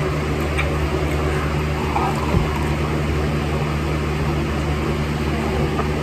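A steady low hum, with a single faint knock about two and a half seconds in.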